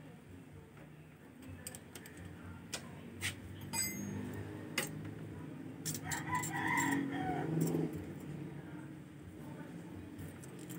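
A rooster crowing once, about six seconds in, for roughly two seconds. Light metallic clicks and taps come from hand work with a feeler gauge on the scooter's valve rocker arms.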